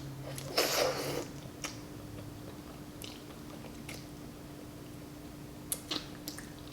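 Close-miked eating of noodle soup with glass noodles: a short noisy burst about half a second in, then chewing with scattered small wet mouth clicks.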